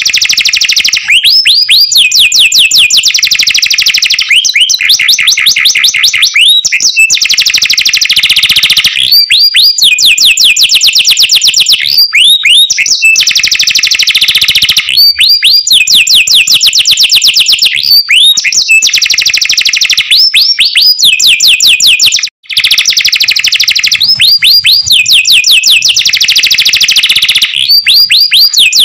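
Domestic canary singing a loud, continuous song of rapid high trills. Each phrase opens with a few quick curved whistled sweeps and runs into a fast rattling trill, and the phrases follow one another every two to three seconds. The song cuts out for an instant about 22 seconds in.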